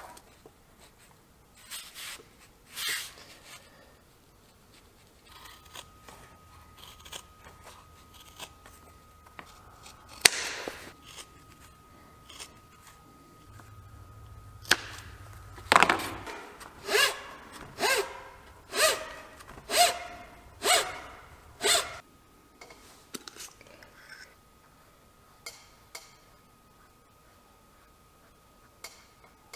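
Hand snips cutting through leather: a run of about eight sharp cuts, roughly one every three quarters of a second, with scattered lighter clicks and scrapes of handling before and after.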